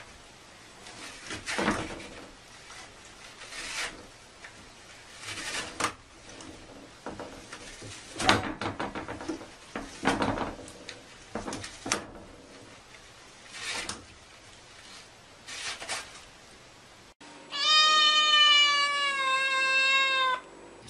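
Toilet paper rustling and unrolling in irregular bursts as a cat paws at the roll on its holder. Near the end, a cat gives one long meow of about three seconds, falling slightly in pitch.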